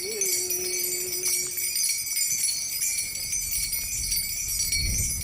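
Many small bronze bells shaken together in a steady, dense jingle. A single held note sounds over them for the first two seconds, and a low rumble comes in near the end.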